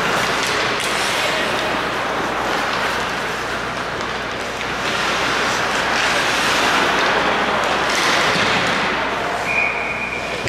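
Ice hockey play in an arena: skates scraping and carving the ice, with scattered knocks of sticks and puck, as an even wash of noise.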